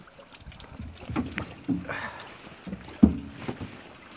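Several knocks and thumps of gear being handled against a boat's hull and seats, the sharpest a little after halfway.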